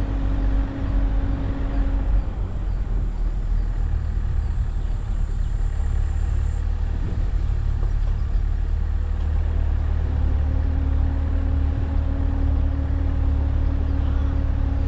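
A vehicle engine running steadily with a low rumble. A steady hum over it fades out about two seconds in and comes back at about ten seconds.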